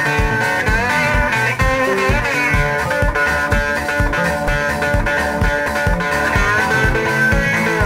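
Blues-rock music with no singing: electric guitar playing bending notes over bass and a steady drum beat.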